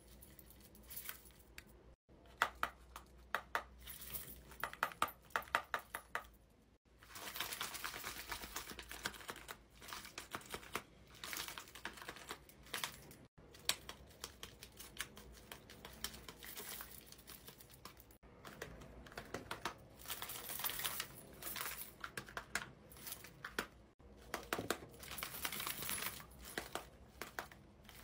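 Handmade paper and cardboard dragon puppets' jaws being snapped open and shut in runs of quick clacks, with crinkling of the taped paper.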